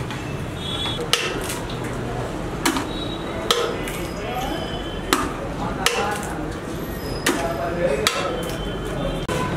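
Eggs being cracked one after another into a large stainless steel bowl: about eight sharp cracks, roughly one a second, over a steady low background noise.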